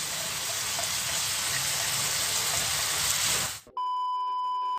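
Shredded vegetables sizzling as they stir-fry in a wok of spice paste, a steady hiss for about three and a half seconds. It cuts out briefly, then a steady high beep like a TV test-pattern tone sounds to the end.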